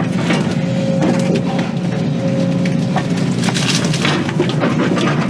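Excavator diesel engine running steadily under load, with repeated cracking and snapping of wood as the machine breaks and crushes tree limbs.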